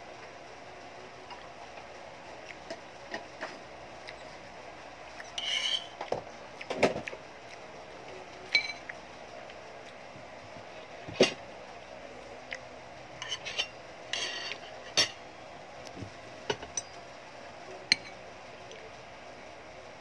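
Spoon clinking and scraping against a plate while eating rice: about a dozen scattered short clinks and scrapes, the loudest about eleven seconds in, over a steady low background hiss.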